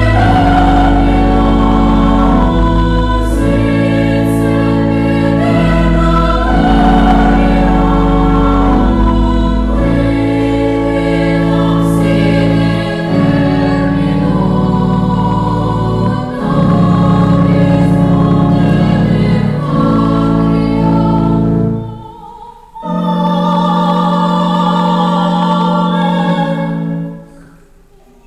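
Teenage choir singing a slow hymn in several parts over held organ chords. The deep bass notes of the organ stop about 22 seconds in. The voices carry on over lighter accompaniment for a few seconds and then die away near the end.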